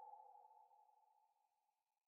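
Near silence: the tail of a held synthesizer chord from the soundtrack music fades away within the first half second.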